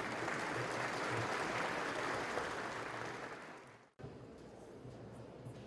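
Audience applauding, dying away about three and a half seconds in, then an abrupt cut to quiet room noise.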